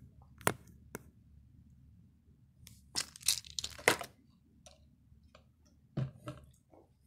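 A plastic cup and other objects being handled and set down on a wooden table: a few sharp knocks, with a burst of crackling plastic about three to four seconds in as the cup is picked up.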